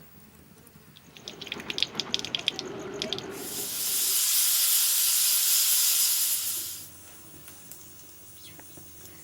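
Hissing from a pot cooking over a wood fire: about two seconds of rapid sputtering crackles, then a loud, steady hiss for about three seconds that cuts off sharply.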